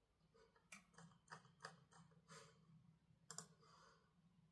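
Faint, irregular clicks from a laptop's keys, about six in the first three seconds or so, over a low room hum.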